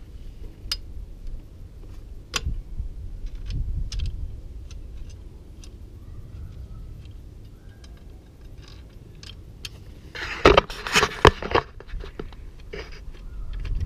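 Small screws and hand tools being handled while a radiator guard is fitted: scattered light metallic clicks and taps, with a louder burst of clattering and rustling about ten and a half seconds in.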